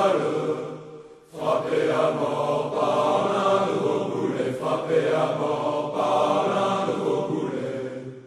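Music from an old recording, long held notes in several voices or instruments together, with a brief break about a second in and a fade-out near the end.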